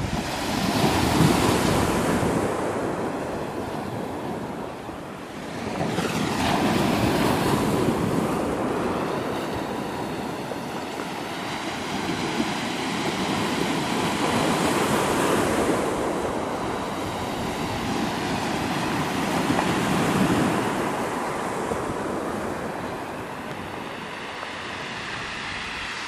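Small sea waves breaking and washing up a pebble beach, the surf swelling and fading about four times.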